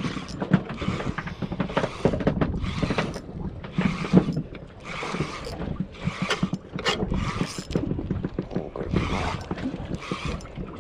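Small waves slapping against the hull of a small boat in choppy water, in irregular splashes about once a second, with wind buffeting the microphone.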